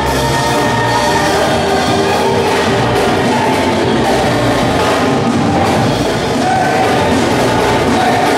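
Loud, continuous gospel music.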